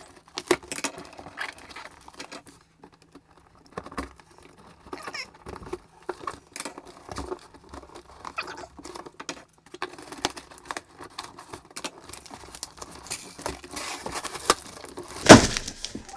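Fingernails scratching and picking at packing tape on a cardboard box, a scattered run of small scrapes and clicks. One loud, sharp rasp about a second before the end as the box is pulled open.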